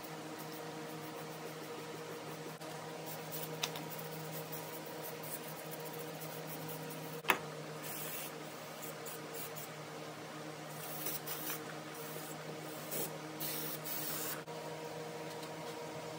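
Degreaser sprayed onto a bare engine head: light squirts from a trigger spray bottle in the first half, then an aerosol can hissing in several short bursts between about 8 and 14 seconds. A sharp click a little after 7 seconds is the loudest moment, over a steady hum.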